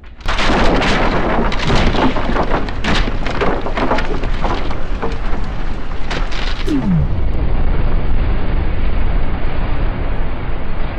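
A large explosion: a sudden blast a fraction of a second in, then a dense run of sharp cracks from flying debris, settling into a steady rumble.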